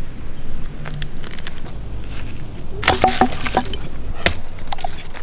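Dry wood cracking and snapping: a quick cluster of sharp cracks about three seconds in, then one more crack a second later. A steady high-pitched insect drone comes in near the end.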